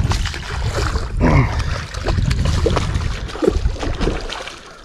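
Hooked bowfin thrashing and splashing at the water's surface close to a kayak, dying down near the end.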